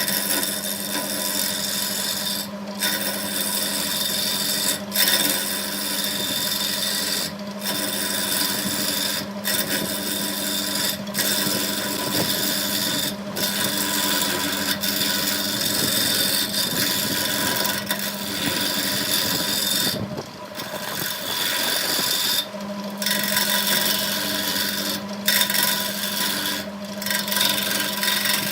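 Wood lathe running with a steady motor hum while a tool scrapes the spinning wood in strokes of about two seconds, with a short break between strokes.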